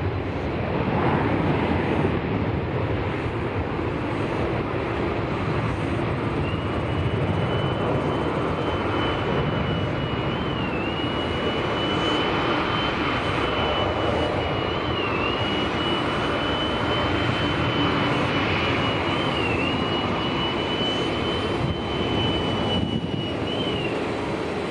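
Jet airliner engines running with a steady, even noise, a thin high whine joining about six seconds in and dipping briefly a few times.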